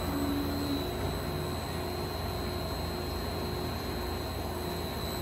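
Steady machine hum and hiss with a thin, high steady whine from a powered-up Mitsubishi RC32-B CNC cylindrical grinder.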